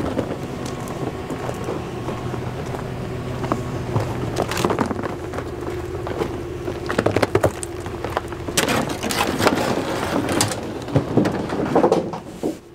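Plastic duck decoys and gear knocking and rattling as they are handled at a pickup truck bed, with several clusters of clatter in the second half. A steady low hum runs underneath.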